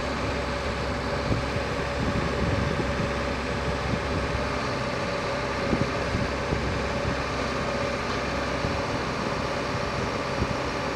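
Komatsu PC71 excavator's diesel engine running steadily, with a steady whine held over the engine sound as the boom and bucket work. A few light knocks come through.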